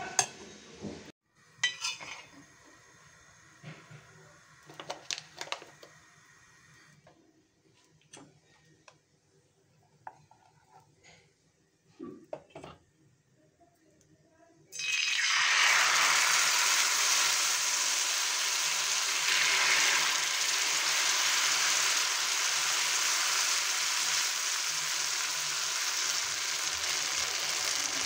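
A metal spoon clinking and scraping against a steel bowl as a sabudana batter is stirred, in scattered knocks with quiet gaps. About halfway through, a sudden loud, steady sizzle starts as the batter goes into a hot oiled pan and fries.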